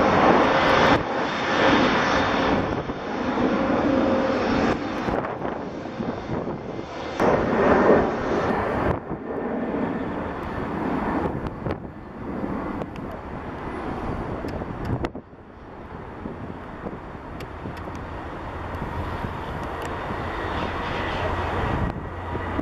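Jet airliner engines roaring during a climb-out, loudest at first, dropping off sharply about fifteen seconds in and then swelling again.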